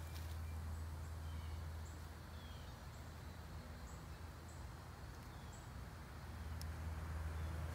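Outdoor ambience: a steady low rumble with faint, short bird chirps now and then.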